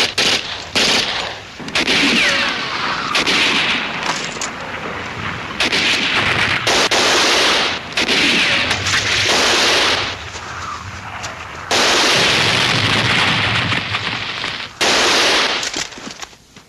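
Battle gunfire with machine-gun bursts, in repeated loud blasts about a second long separated by short lulls, quieter near the end.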